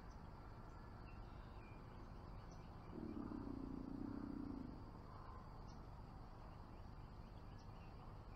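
Bow-mounted electric trolling motor humming low for about a second and a half, switched on about three seconds in and then off again. Insects drone steadily behind it, and birds chirp now and then.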